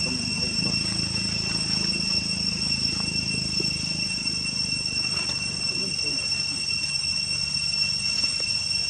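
Steady, high-pitched insect drone that holds one pitch throughout, over a low, unsteady murmur.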